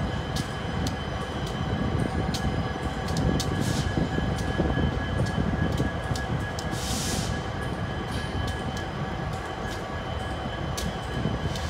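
Union Pacific intermodal freight train's cars rolling slowly past: a steady low rumble with irregular clicks of wheels over the rail joints and a thin steady whine from the wheels. A short hiss comes about seven seconds in.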